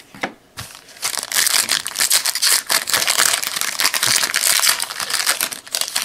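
Crinkling of a plastic trading-card pack wrapper as it is handled and torn open, starting about a second in and running in dense crackles until near the end.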